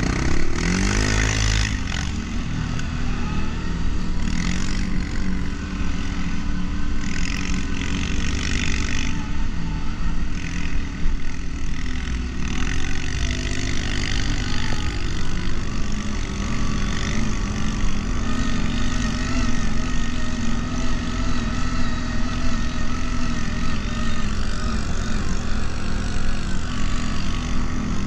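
Quad bike (ATV) engine rising in revs about a second in, then running steadily under load on a climb.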